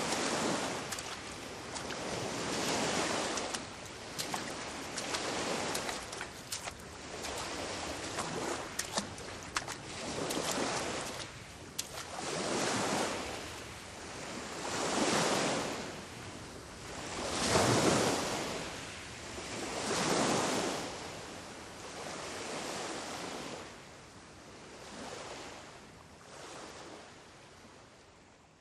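Ocean surf breaking on a rocky shore, washing in swells every two to three seconds, with scattered small crackles in the first half. The surf fades down near the end.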